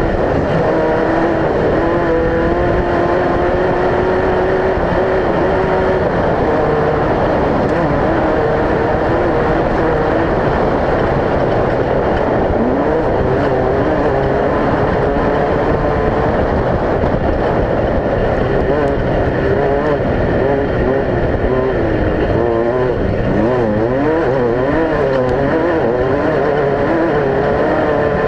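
Off-road race vehicle engine running hard over a dense, loud mechanical noise. Its pitch wavers up and down throughout, swinging quickly for a few seconds near the end.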